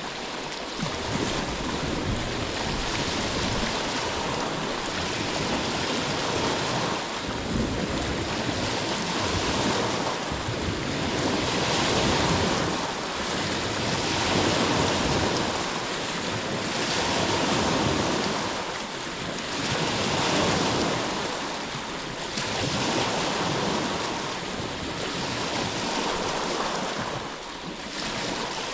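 Ocean waves washing ashore, a steady surf noise that swells and fades every few seconds.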